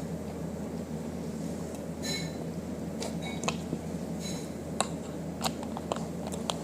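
Steady low hum of room noise with scattered light clicks and small clinks, a few of them ringing briefly.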